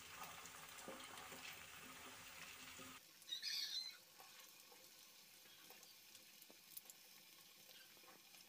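Faint sizzling of sukhiyan balls deep-frying in coconut oil, which drops away abruptly about three seconds in. A brief high-pitched sound follows just after, then only faint crackles.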